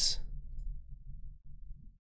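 The hissing end of a spoken word, then a low rumble of room noise that cuts off suddenly just before the end.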